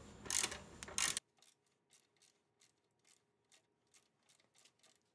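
Hand socket ratchet undoing the upper mounting bolt of a motorcycle rear shock absorber. A few loud rasping ratchet strokes come in the first second, then faint, quick clicks follow about every third of a second.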